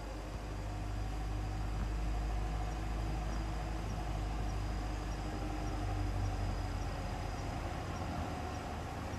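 Engine of a rubber-tyred tourist road train, a mock steam locomotive pulling carriages, running at low speed as it approaches. It gives a steady low hum.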